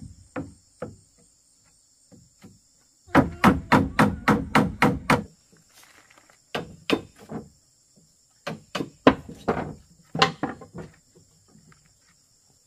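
A hand tool striking bamboo: a quick run of about ten blows, then scattered groups of blows, over a steady high drone of insects.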